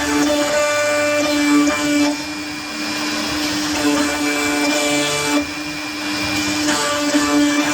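CNC router spindle running steadily with a constant whine while it cuts MDF. It grows louder and harsher three times, for a second or two each, as the bit works through the board.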